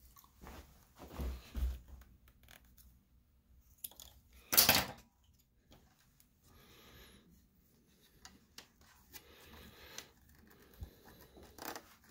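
Scattered faint clicks and scrapes of hands handling wires and small parts at a repair bench, with one loud brief noise lasting about half a second, about four and a half seconds in.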